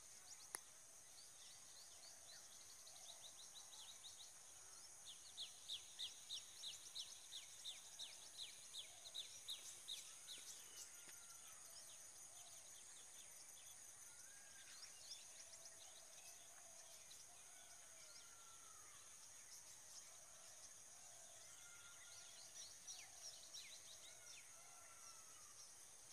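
Faint open-country ambience with small birds calling over a steady high hiss. About five seconds in, a run of quick sharp chirps comes at about three a second for some five seconds, with a few more near the end and scattered short calls between. There is one sharp click about half a second in.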